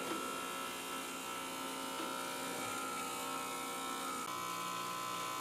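Electric hair trimmer buzzing steadily as it trims a sideburn, with its tone shifting slightly about four seconds in.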